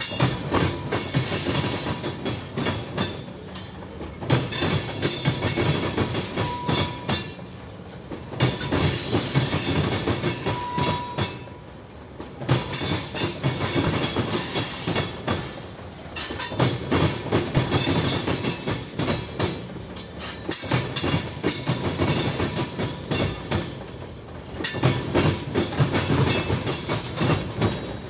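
Loaded crude oil tank cars rolling slowly over a railroad diamond crossing. The wheels clatter in a cluster each time the trucks at a coupling pass over, repeating about every four seconds, with brief quieter gaps in between.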